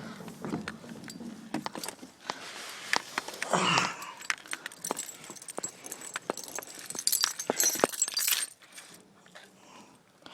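A bunch of car keys jangling and clinking as they are handled, in quick irregular clicks for several seconds, with a louder rustling knock about three and a half seconds in.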